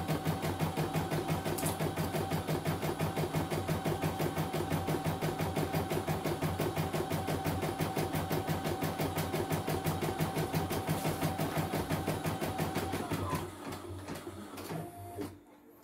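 CNY E900 computerized embroidery machine stitching at a rapid, even rhythm. About 13 seconds in the stitching slows and trails off, stopping near the end as the design is finished.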